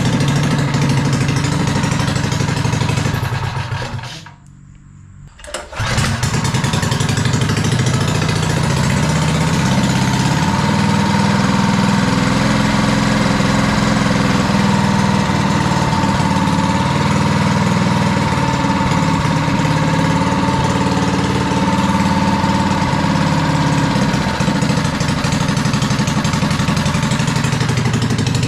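Small single-cylinder go-kart engine (a 212cc four-stroke) running steadily. Its sound drops away briefly about four seconds in and comes back up about a second and a half later, then runs on evenly.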